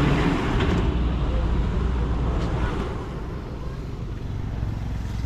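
Road traffic: a motor vehicle going past, its noise fading away over the first three seconds, over a steady low rumble.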